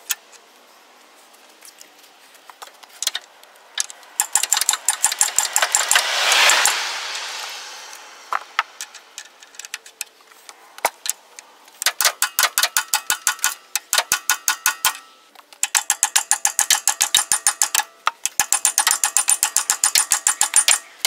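Rapid mallet blows driving a new crankshaft timing gear onto the crank of a Ford 4.9-litre inline-six, struck through the old gear used as a driver, in runs of about five blows a second with a metallic ring. Around six seconds in, a rushing noise swells and fades.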